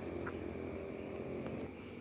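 A low steady rumble, over the faint continuous high-pitched trilling of night insects.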